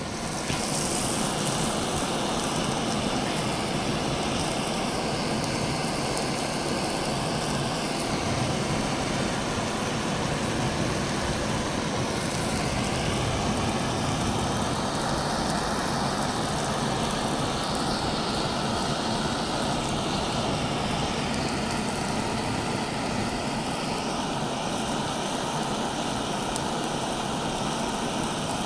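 Handheld butane blowtorch burning steadily with a continuous rushing hiss as its flame is held on a lump of sulfur to ignite it.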